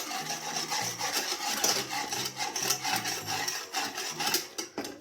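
A utensil stirring cold water, sugar and cornstarch together, scraping round the container in a steady run of quick strokes.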